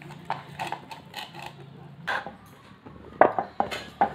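Soft dough being kneaded by hand in a plastic bowl and then on a wooden board: a string of short, uneven squelches and knocks, the sharpest near the end.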